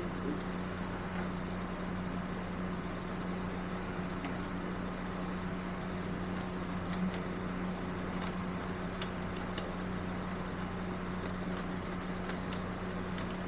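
Steady electric fan hum, with a few faint light clicks of hand tools on the motorcycle's parts.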